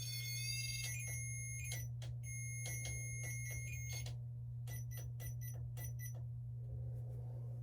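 High-pitched electronic tones and beeps that start and stop in short stutters and end about six seconds in, over a steady low hum.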